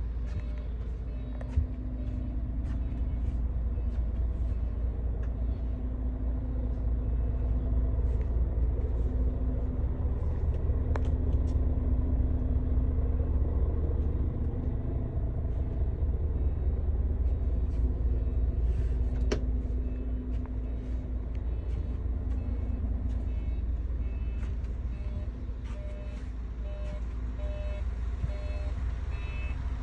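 Mercedes-Benz Tourismo coach's diesel engine idling, a steady low rumble heard from inside the passenger cabin, with a faint beeping that comes and goes.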